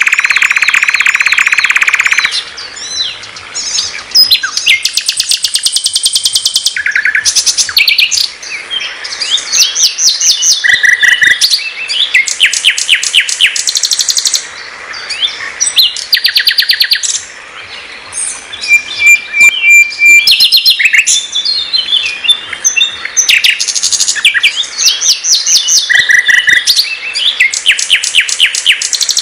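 Sikatan londo singing a loud, varied song: fast trills and rapid runs of sharp repeated notes, broken by short pure whistles and brief pauses.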